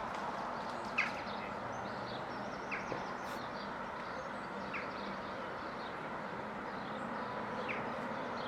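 Birds chirping a few times, short and high, over a steady outdoor background noise.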